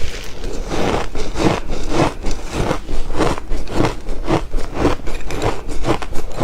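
Close-miked crunching of ice being chewed, in a steady rhythm of about two crunches a second.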